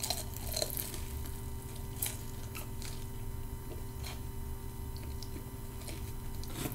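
A person biting into and chewing a baked cheese pepperoni bite, with a few short crunches scattered through the chewing, over a low steady hum.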